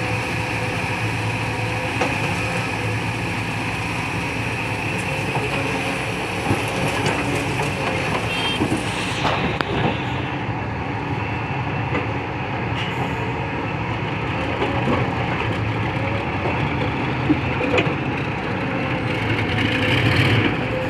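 Excavator running: a steady engine drone with scattered short metallic knocks and clanks, rising a little near the end.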